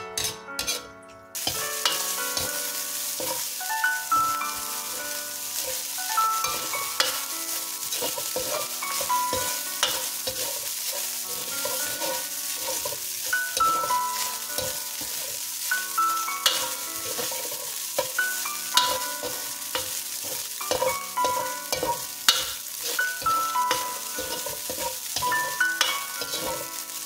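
Ground beef frying and sizzling in a hot pan while a spatula stirs and turns it. Sharp scrapes and taps of the spatula on the pan come through the steady sizzle.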